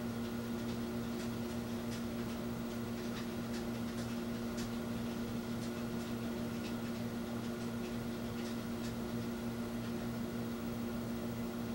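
Steady electrical hum from mains-powered bench equipment, most likely the variable AC transformer, with faint, irregular light ticks.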